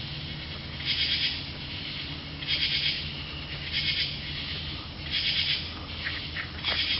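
Unidentified night animal giving a short, high, raspy call, repeated five times about every second and a half, over a steady low hum.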